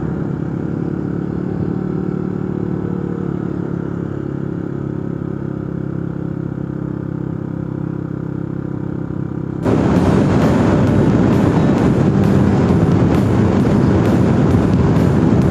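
Motorcycle engine running steadily at cruising speed while riding. About two-thirds of the way in, louder background music with a steady drum beat cuts in suddenly over it.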